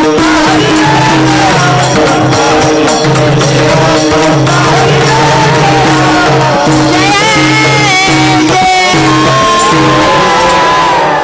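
Devotional kirtan music: singing voices over a steady held drone, with hand percussion and jingling clicks keeping the beat. The music fades out abruptly at the very end.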